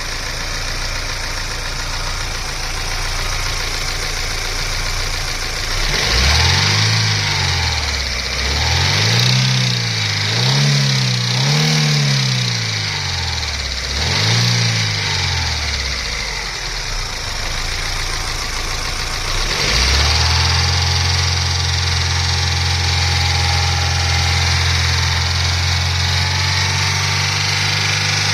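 Daewoo Lanos 1.5 SOHC four-cylinder petrol engine idling, revved in four quick blips that rise and fall, then running steadily and a little louder from about twenty seconds in. It is making a noise that the owner suspects means engine damage.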